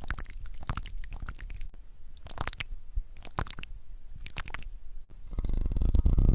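Close-miked ASMR trigger sounds: short bursts of crackling and rubbing, followed by a louder, denser stretch of scratchy rustling near the end.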